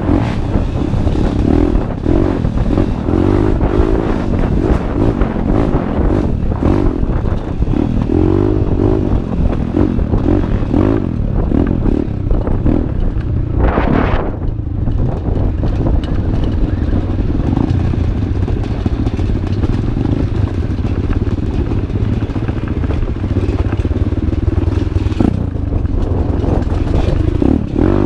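Enduro dirt bike engine running loud and continuously, its pitch rising and falling as the throttle is opened and eased. There is a short burst of noise about halfway through.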